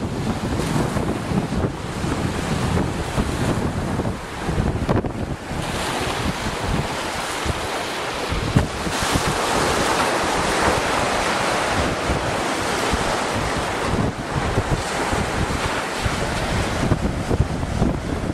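Wind buffeting the microphone over the steady rush of ocean waves. The rush grows louder for a few seconds about halfway through.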